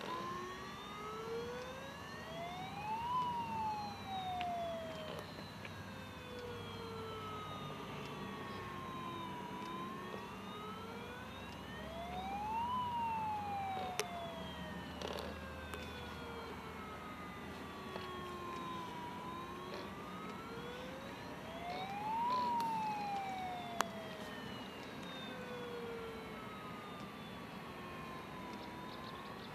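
Wailing siren of a radio-controlled model fireboat, sweeping slowly up for about three seconds and back down for about six, three times over. A couple of sharp clicks are heard along with it.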